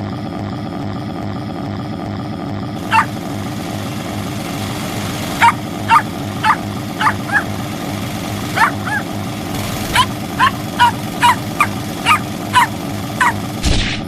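A dog barking repeatedly in short, sharp barks: one about three seconds in, then a quick irregular run of about fifteen more. A steady low drone runs underneath, and both stop at the very end.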